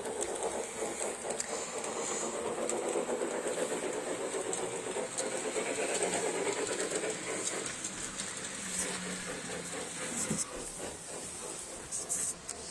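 Hartland large-scale model steam locomotive running on its track: a steady whirring, rattling run of the motor gearing and wheels over the rails, with a steady high hiss over it. A few sharp clicks near the end.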